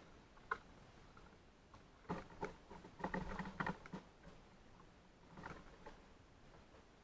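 Birds pecking and scrabbling at seed in a feeder: scattered faint taps, with a dense flurry of tapping and scratching about two to four seconds in.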